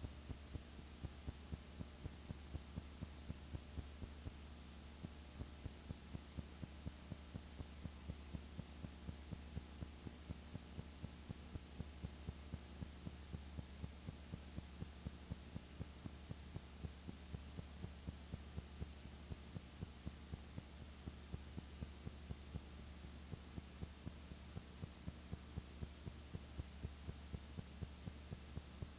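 Steady low hum with faint, even clicks about three times a second: background noise of a silent film transfer, with no sound from the scene itself.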